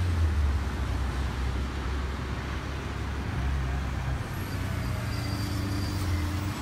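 Road traffic: a vehicle engine running with a steady low hum over a general haze of traffic noise.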